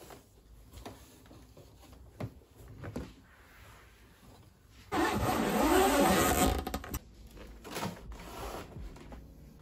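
Soft rubbing and light knocks of a cloth wiping a desk, then about five seconds in a loud rushing noise that wavers in pitch for about two seconds and stops suddenly.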